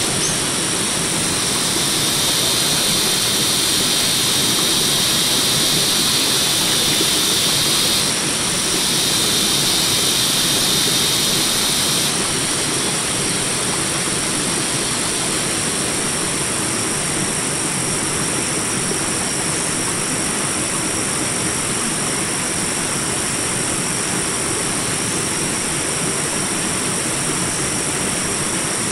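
Small jungle rapids: water rushing steadily over rocks. A high, even buzz joins about two seconds in, drops out briefly near eight seconds and stops about twelve seconds in.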